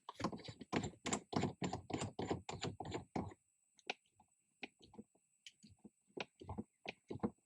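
A quick run of sharp clicks, about five a second for around three seconds, then slower scattered clicks and taps, as metal shifter parts are handled and the extension is threaded onto the gear shifter.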